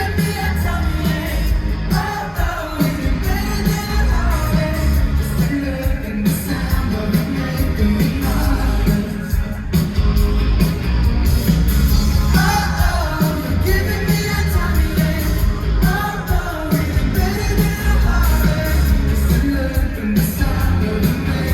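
A live pop-rock band playing loudly, with a heavy bass and drums under a sung melody.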